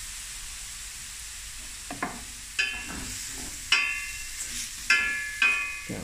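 Prawns sizzling gently in a hot stainless steel pan, dressed with lemon juice, as a wooden spoon stirs them. About four sharp knocks of the spoon against the pan come in the second half, each with a brief metallic ring.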